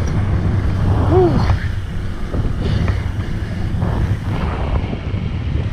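Wind buffeting the microphone over the steady rumble of a mountain bike rolling along a dirt trail.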